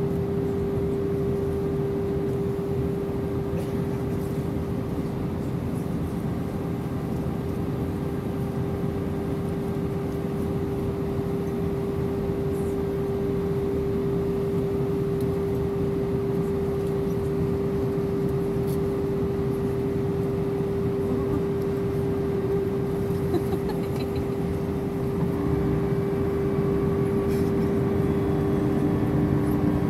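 Airbus A319 cabin noise from a window seat over the wing on descent: a steady rush of engines and airflow with a constant hum tone. About 25 seconds in it grows slightly louder and a second, lower tone joins the hum.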